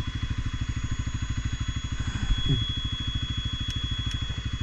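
CFMOTO CForce 450 ATV's single-cylinder four-stroke engine idling, an even rapid putter of about a dozen firing pulses a second.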